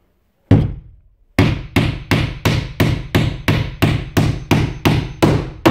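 Sturnus 13oz aluminium-handle claw hammer with a milled face driving a nail into a timber lath. A single setting blow comes about half a second in, then after a short pause about a dozen quick, even blows follow at roughly three a second.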